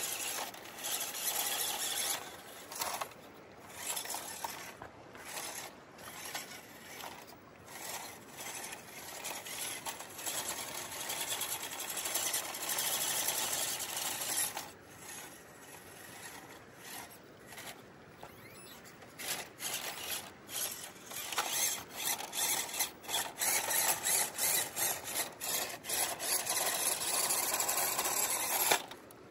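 WPL C24 1/16-scale RC crawler's small electric motor and geared drivetrain whining as it is driven over rough ground in stop-start throttle bursts. It eases off for a few seconds midway, then comes in rapid short bursts near the end.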